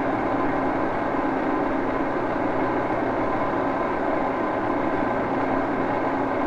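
Baby Axelson engine lathe running at a steady speed, a constant gear-driven hum with several fixed whining tones.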